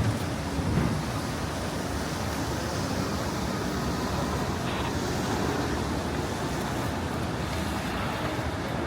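Steady city street noise of traffic going by, an even rushing hiss with no distinct events.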